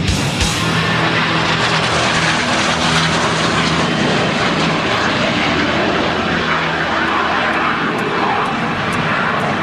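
Single-engine propeller aerobatic plane flying a display, its engine running with a steady low tone over a loud even noise.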